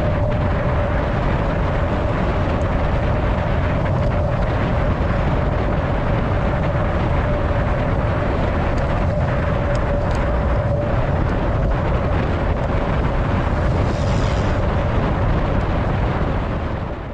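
Wind rushing over an action camera's microphone as a road bicycle rides at about 44 km/h, with tyre and road noise beneath and a steady hum. It fades in at the start and fades out near the end.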